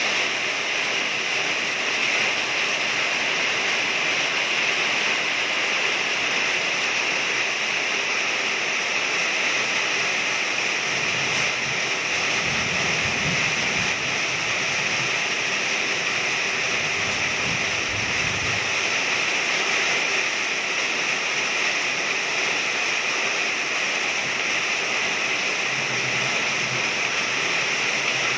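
Heavy rain falling steadily on a corrugated carport roof, with water pouring off the roof edge.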